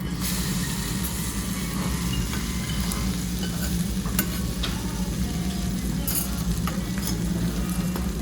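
Okonomiyaki sizzling on a hot tabletop griddle, with a few sharp clicks and scrapes of a metal spatula against the griddle. A steady low hum runs underneath.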